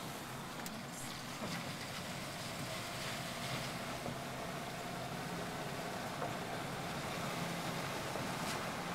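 Steady engine and tyre noise inside a car driving slowly on wet pavement, with a few faint clicks.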